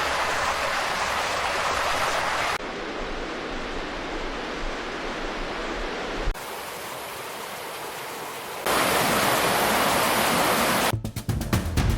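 Rushing floodwater, a steady roar of running water in several short clips cut one after another. Music with heavy hits comes in near the end.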